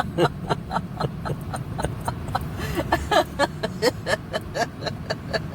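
Car cabin road rumble with a fast, regular ticking, several ticks a second, and a short voiced hiccup sound a little under halfway through.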